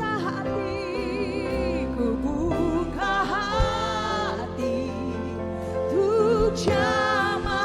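Christian worship song: sung vocals with vibrato over a sustained band accompaniment with keyboard and bass.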